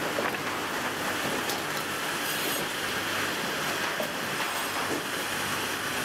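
Sawmill line machinery running: a steady mechanical clatter and hum from the board transfer chains and roller conveyors, with a few light knocks.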